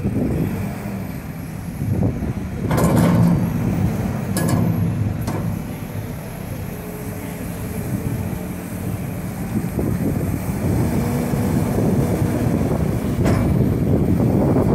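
JCB Loadall 531-70 telehandler's diesel engine running while the raised boom and bucket are lowered, with a few short knocks along the way. The machine grows louder near the end.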